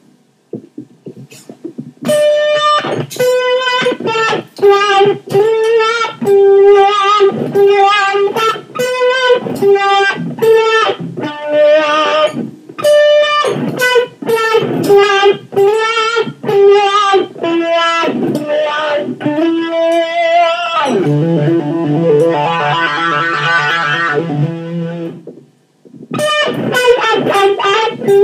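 Electric guitar played through an 18-volt Dunlop Cry Baby 535Q wah pedal with Clarostat pots: a phrase of picked single notes, then a chord held for about four seconds starting a little after 20 seconds in, and after a short break more picked notes.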